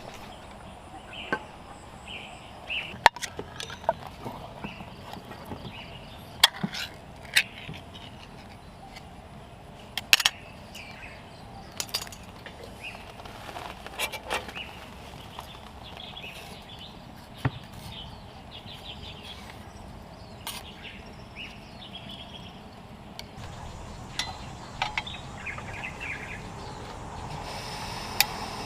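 Scattered sharp clicks and knocks, a dozen or so, over faint, short, repeated chirping.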